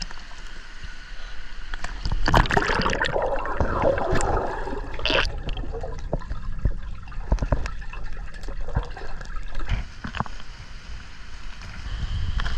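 Pool water splashing and sloshing, loudest in a burst a couple of seconds in, over a steady low rumble of strong wind buffeting the microphone.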